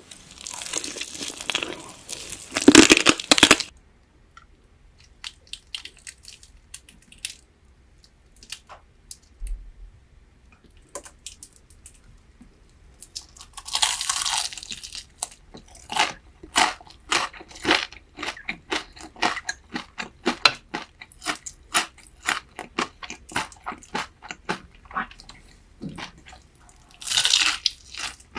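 Crunchy food being bitten and chewed close to the microphone. A loud burst of crunching comes at the start, then a quiet stretch, then steady chewing crunches about three a second, with another loud burst near the end.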